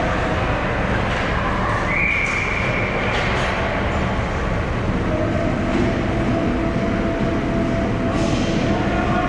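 Ice hockey arena din during play: a loud, steady noisy rumble, with a brief high tone about two seconds in.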